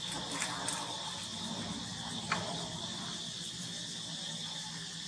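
Steady high-pitched drone of insects, with a few short clicks and rustles, the sharpest a little over two seconds in.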